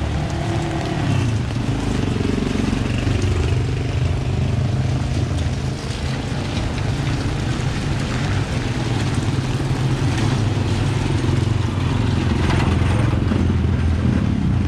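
Street traffic: motor vehicle engines running close by, steady throughout, with the engine pitch shifting up and down in the first few seconds.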